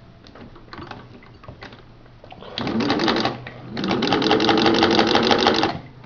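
Singer 15-91 sewing machine with its built-in direct-drive motor, run slowly on fabric with no thread. A few light clicks come first. Then the machine runs in two short spells, under a second and then about two seconds, with the motor's pitch rising as it starts and a rapid even clatter of needle strokes.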